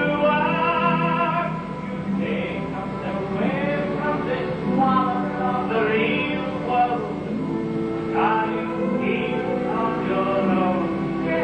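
Broadway show tune: a voice singing over orchestral accompaniment, with long held notes underneath.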